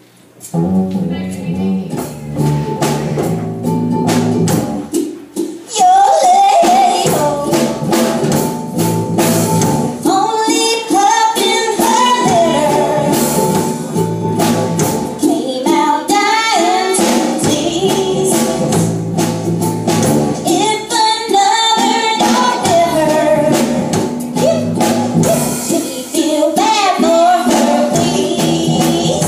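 Live rock band playing: electric guitars and a drum kit with cymbals start together right at the beginning, and a woman's lead vocal comes in about six seconds in.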